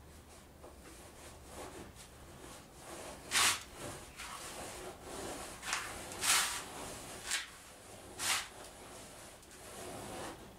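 Scratch stock dragged along the edge of a wooden boat rail, scraping a decorative bead into the timber: a steady rasping scrape with about five sharper, louder strokes in the middle.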